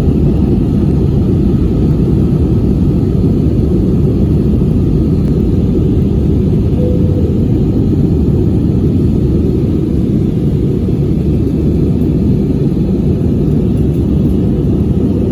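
Steady, loud rumble of an airliner in flight as heard inside the passenger cabin: engine and airflow noise, deep and even, with no change throughout.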